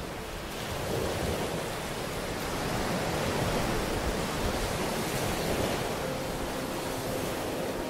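Rushing water noise from an ambient relaxation soundscape, swelling about a second in. Soft held music tones come in near the end.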